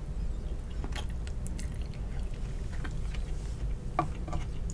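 Close-miked chewing of a bite of hard-boiled egg: soft wet mouth sounds with scattered small clicks, over a faint steady low hum.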